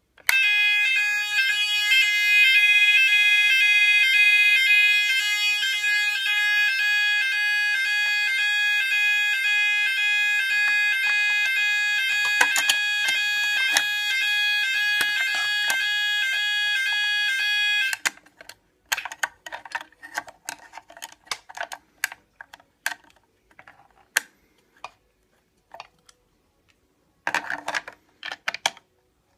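Neutronic fire alarm sounder of a homemade 9-volt type 4 fire alarm sounding a shrill, pulsing alarm tone, which cuts off suddenly after about 18 seconds. Scattered clicks and knocks follow, with a short louder rattle near the end.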